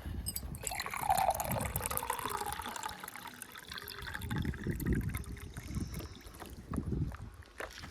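Wet mud sliding and spilling from a JCB 3DX backhoe loader's bucket into a tractor trolley, over the machine's diesel engine, with a whine falling in pitch about a second in.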